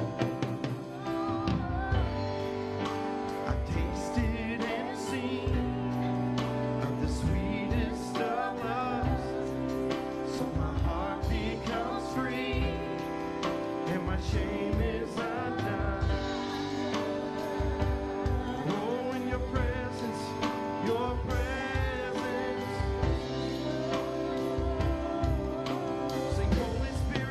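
A live worship band playing a slow song: a woman singing lead over electric bass, keyboard and electric guitar, her held notes wavering with vibrato.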